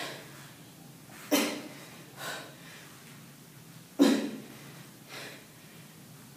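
A woman's effortful, forceful exhales during a weighted exercise: a sharp breath out about a second in and a weaker one a second later, then the same pair again about four seconds in.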